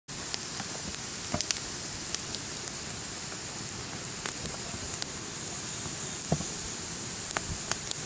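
Wood campfire burning with a steady hiss and scattered sharp crackles and pops.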